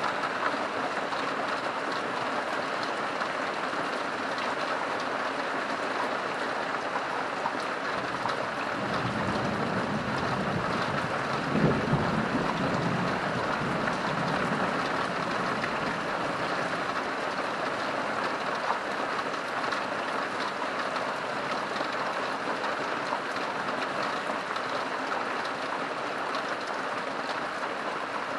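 Heavy rain falling steadily. About nine seconds in, a low rumble of thunder builds, peaks a few seconds later and fades away over several seconds.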